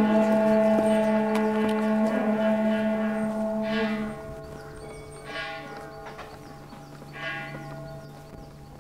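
Buddhist monks chanting in long, held low notes. One loud held tone stops suddenly about four seconds in while a lower drone carries on, with short breathy sounds in between.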